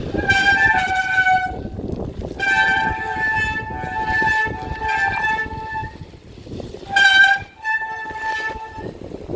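A vehicle horn sounding four long blasts of different lengths, the longest about three seconds. Steady wind and rolling noise runs underneath.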